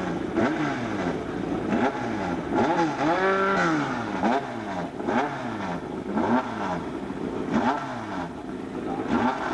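Formula 3 race car's four-cylinder engine held stationary and blipped over and over, the revs rising and falling roughly every three-quarters of a second, with one longer, higher rev about three and a half seconds in: the driver keeping the engine on the boil while waiting to launch.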